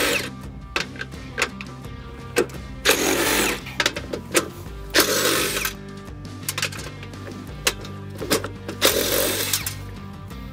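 Cordless drill drilling out rivets in a plastic factory bumper, in four short runs of under a second each, with sharp clicks and taps in between. Background music plays throughout.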